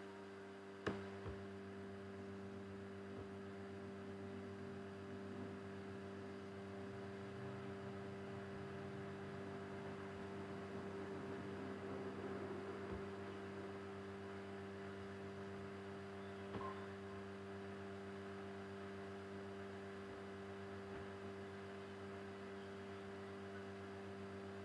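Steady electrical mains hum made of several layered steady tones, with a sharp click about a second in and a fainter click about two-thirds of the way through.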